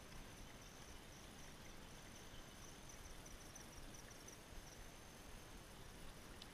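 Near silence with a faint insect trill: one steady high-pitched tone that breaks into quick, even pulses for a couple of seconds in the middle, over a low outdoor hiss.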